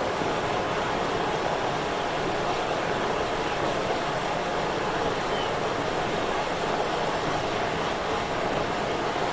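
Steady, even rushing of reservoir water, with no distinct splashes or other events.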